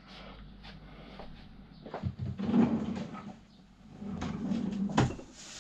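Aluminium scooter parts being handled and shifted on a workbench: soft scraping and knocking, with one sharp click about five seconds in.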